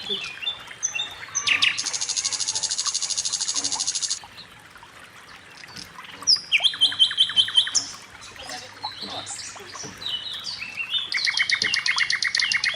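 Birds singing: two rapid, evenly pulsed high trills of about two seconds each, one near the start and one near the end, with a run of separate chirps between them.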